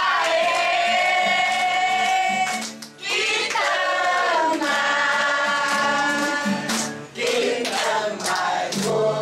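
Singing in long drawn-out phrases, each note held for several seconds with short breaths between, while a group claps along.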